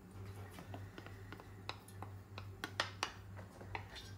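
Faint, irregular small clicks and ticks over a steady low hum as oil runs from a bowl into a hot iron karahi on a gas hob, with a slightly louder click near the three-second mark.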